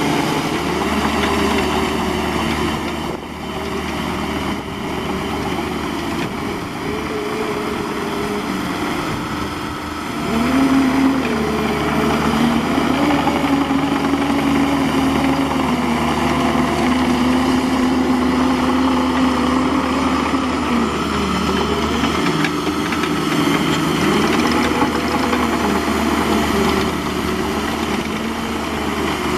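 Bobcat E50 mini excavator's diesel engine running under working load, its pitch and the hydraulic whine rising and falling as the machine digs and moves dirt. It gets louder about ten seconds in.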